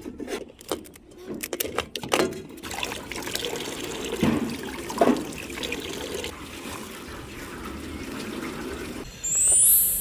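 Water running and splashing into a pot, with a few clinks at the start. Near the end a loud, rising, high-pitched sweep cuts in.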